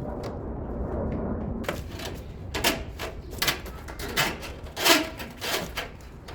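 Work noises: a low rumble, then a string of about eight sharp knocks and clacks from hard objects being handled or struck.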